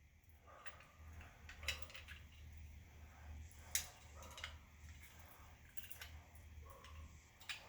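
Faint, scattered metal clicks and clinks, about five in all, as vise grips grip and bend the tailgate latch's sheet metal, over a faint steady low hum.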